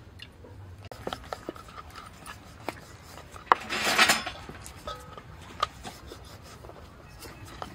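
Kitchen handling sounds: scattered light knocks and clinks of utensils and cookware, with a short scraping, rubbing noise a little before four seconds in.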